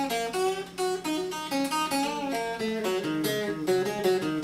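Electric guitar picking a slow blues lick of single notes one after another, moving down to lower notes about three seconds in.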